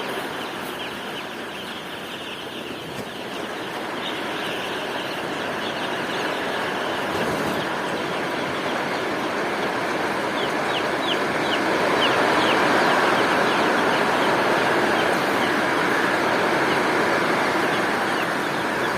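Steady rain noise, growing a little louder partway through, with chickens peeping and clucking over it in short high calls, thickest around the middle.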